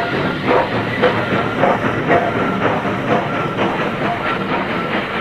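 Model steam locomotive and coal hopper running around curved model track: a steady running noise with a rhythmic beat of about two pulses a second.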